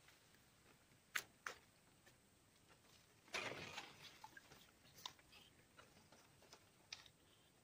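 Near silence with a few faint clicks and knocks and a short rustle about three seconds in.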